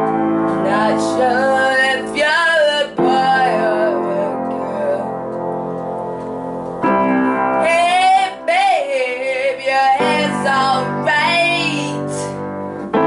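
A boy singing with his own upright piano accompaniment: sustained piano chords that change every few seconds under phrases of a young, unbroken voice.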